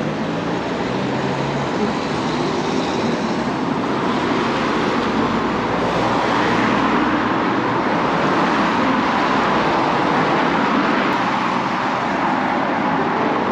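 Steady road traffic noise: a continuous hiss of vehicles and tyres on the road, swelling a little partway through.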